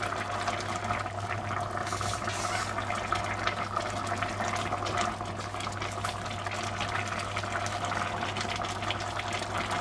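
Tomato sauce simmering in a pot, a steady bubbling and fine crackling, over a constant low hum.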